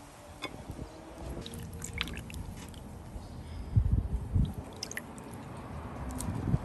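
Soft wet squishing of food being worked by hand or utensil, with scattered small clicks and a few dull knocks about four seconds in.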